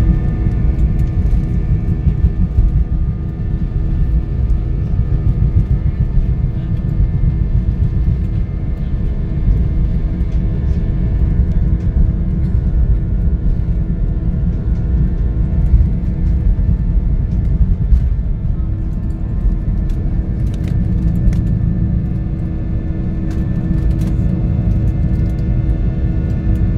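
Airliner cabin noise during the takeoff roll and climb-out: a loud, steady low rumble of the engines and airflow, with steady humming tones above it.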